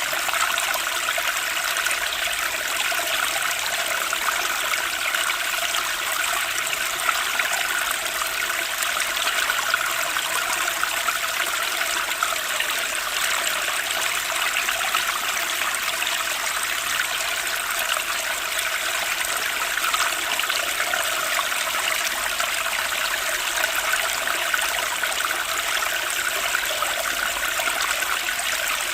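Flowing water from a small stream trickling and splashing steadily, with no break.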